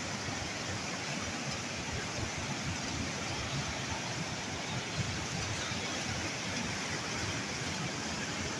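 Muddy floodwater rushing in a steady torrent across a flooded field, a continuous even rush of water noise.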